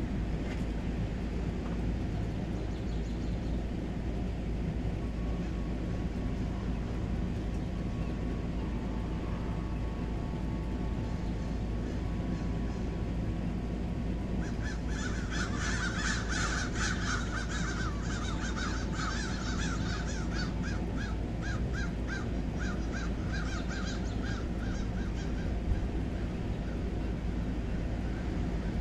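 Steady low outdoor background noise. About halfway through, a bird starts a long run of rapid, evenly repeated calls that goes on for roughly ten seconds and fades near the end.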